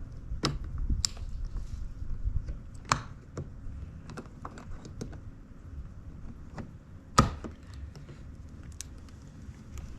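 Scattered light plastic clicks and taps as a door-handle part is handled and fitted into place, with a sharper knock about seven seconds in.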